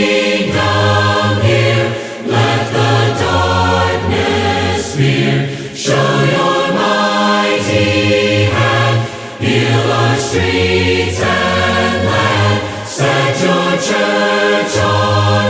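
A congregation singing a worship song in harmony, voices holding notes that change about once a second with a strong low bass part, unaccompanied as is usual in a Church of Christ.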